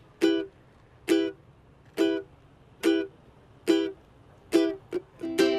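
Intro music of plucked string notes: the same note struck about once a second, then a quicker run of notes near the end.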